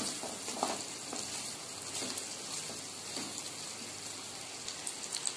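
Goat mutton pieces with ginger-garlic paste sizzling in hot oil in a non-stick pan, a steady hiss, with a few soft scrapes of a wooden spatula stirring them. It is the stage of frying the ginger-garlic paste until its raw smell is gone.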